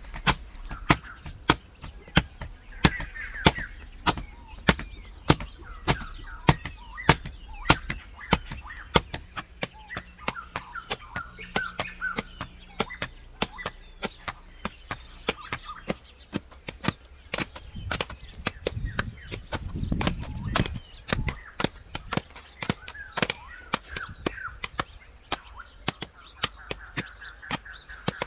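A hoe blade repeatedly striking and chopping into packed clay soil, a little under two blows a second, with lighter, quicker strokes later on. Birds chirp in the background.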